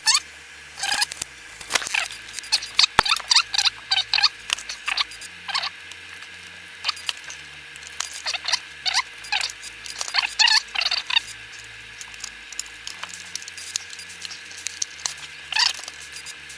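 Irregular clusters of short squeaks from small slide-viewer parts being rubbed and scrubbed clean.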